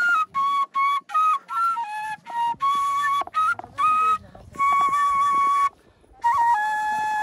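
Background flute music: a flute plays a melody of mostly short, stepping notes, with a brief pause about six seconds in and then a long held note.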